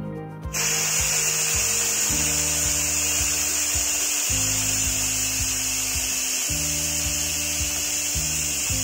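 Steam venting from the pressure release valve of a Preethi electric pressure cooker as it is manually depressurised after its cooking cycle, a steady hiss starting about half a second in.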